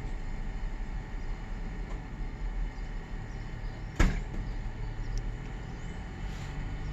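Steady low hum with a single sharp click about four seconds in.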